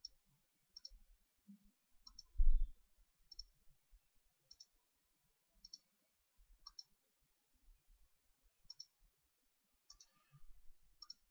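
Computer mouse button clicking about ten times, each click a quick double tick, at roughly one-second intervals. One louder low thump about two and a half seconds in.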